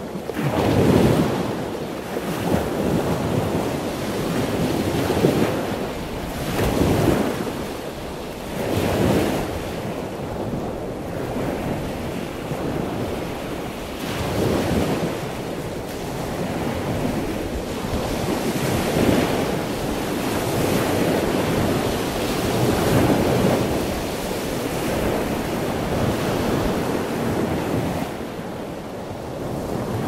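Loud ocean waves surging and washing, swelling and falling every few seconds.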